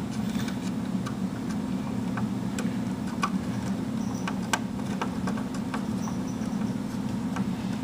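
Scattered light clicks and taps of plastic and metal as memory modules (RAM sticks) are handled and pushed into their motherboard slots, over a steady low hum.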